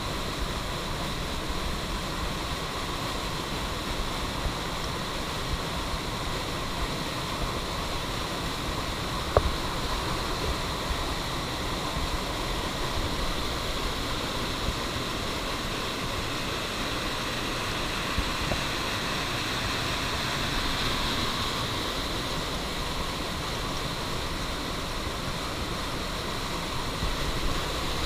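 A rocky forest stream running fast over rocks: a steady rush of white water. A single short knock about a third of the way in.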